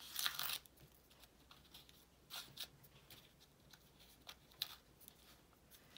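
A few short tearing sounds as small edges are ripped off by hand. The first, right at the start, is the loudest, with quieter tears and paper handling after it.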